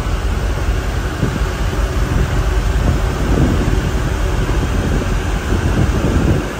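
Steady rush of wind and churning wake water aboard a moving ferry, over a low, even rumble from the ship.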